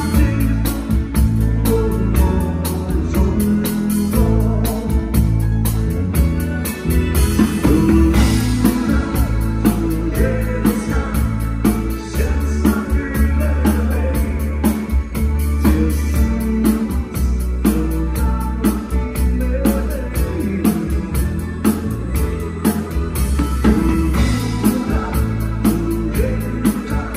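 Live band playing a song: a man singing into a microphone over electric guitar, keyboards and drums, with a steady beat and a strong bass line.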